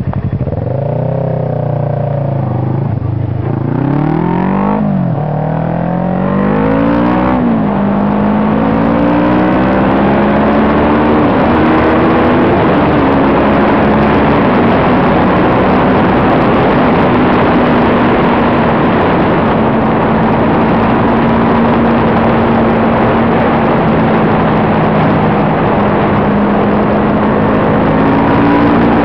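Kawasaki ER-6n's parallel-twin engine heard from the rider's seat, pulling away from a standstill: the revs climb and drop at two quick upshifts in the first several seconds, then the engine runs steadily at about 130 km/h under a growing rush of wind.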